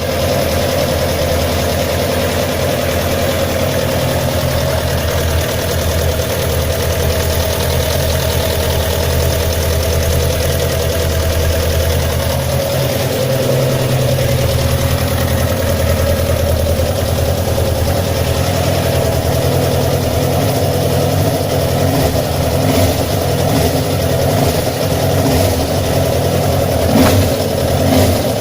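A 2008 Suzuki GSX-R1000 K8's inline-four engine idling with a ticking noise. The tick is from excessive play between the connecting rod pins and their bushings on the third and fourth cylinders, caused by wrong tightening torque and order.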